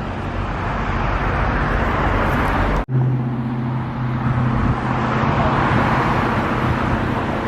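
Steady road traffic noise from cars passing on the road beside the sidewalk. About three seconds in, the sound drops out for an instant, and a steady low engine hum then runs under the traffic.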